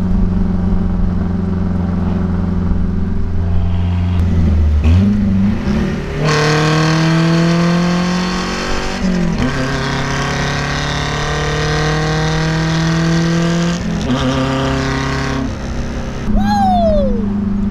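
Nissan 720 minitruck's swapped-in KA24DE 2.4-litre four-cylinder engine accelerating through the gears. The engine note holds steady, then climbs in two long rising pulls, each cut off by an upshift that drops the revs, and settles to a steady cruise.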